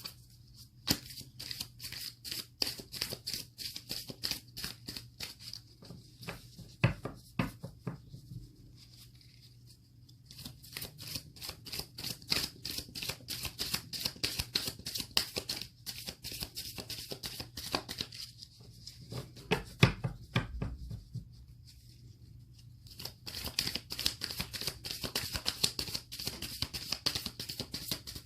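A deck of oracle cards being shuffled by hand: quick runs of crisp card-on-card flicks in three long spells with short pauses between them, and a couple of louder knocks, as of the deck being tapped, near the middle of the spells.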